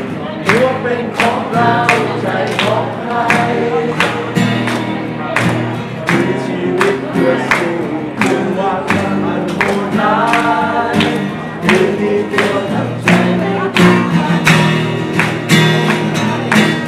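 A song: a singing voice over a band with a steady beat of about two strokes a second.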